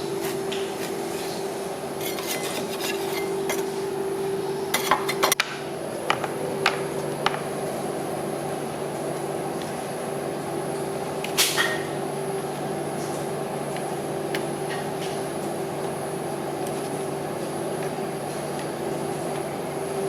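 Metal spatulas tapping and scraping on a rolled-ice-cream cold plate: a few sharp clinks, bunched about two and five seconds in, with a louder single one near the middle, over a steady machine hum.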